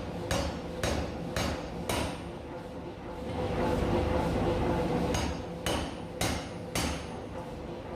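Massey power hammer striking a hot steel bar, about two blows a second: four blows, then a stretch of steady running with no blows, then four more. A steady machine hum runs underneath.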